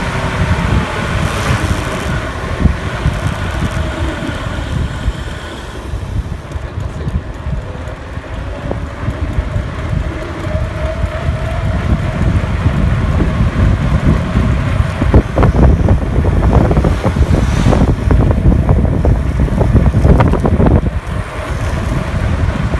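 Wind buffeting the phone's microphone while riding along a road, with a faint whine from the ride that shifts in pitch, and rougher gusts in the latter half.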